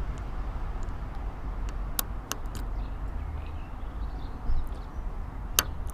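A few sharp metallic clicks of a lock pick and tension wrench working the pins inside an Abus 90/50 Titanium padlock, near the end of the picking just before it opens, over a steady low rumble.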